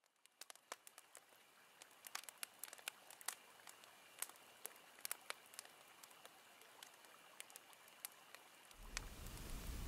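Faint, scattered clicks and crackles at irregular intervals over near silence, with a low rumble coming up near the end.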